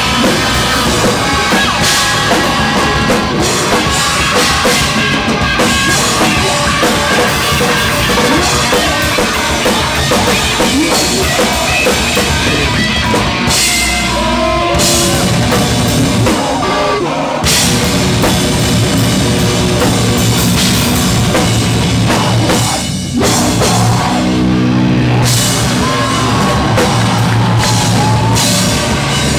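A live heavy band playing loud: a pounding drum kit and distorted electric guitars driven through an effects pedalboard. About three-quarters of the way through the band cuts out for a moment, then comes back in on a heavier, low riff.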